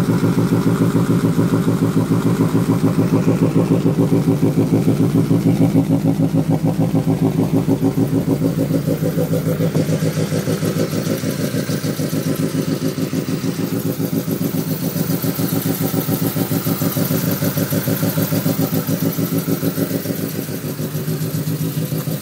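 Honda Civic Si's K20A2 2.0-litre four-cylinder engine, fitted with aftermarket cams, idling with a rough, lumpy lope that pulses quickly and evenly. The uneven idle comes from the modified cams.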